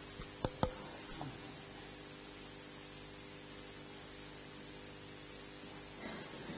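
Steady hiss and mains hum of the church's live-stream sound system, broken about half a second in by two sharp clinks, close together, of vessels being handled on the altar during the purification after Communion.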